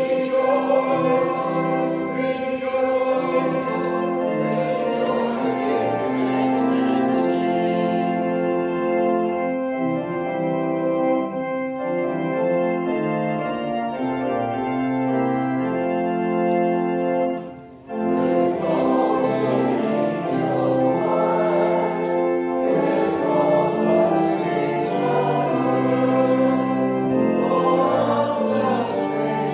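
A choir singing a hymn with organ accompaniment, in held chords, with a short break about seventeen seconds in before the next phrase begins.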